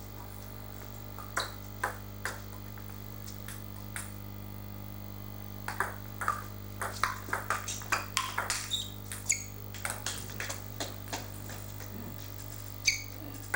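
Table tennis ball clicking off the table and bats: a few single knocks in the first seconds, then a fast rally of hits and bounces from about six seconds in that stops near twelve seconds.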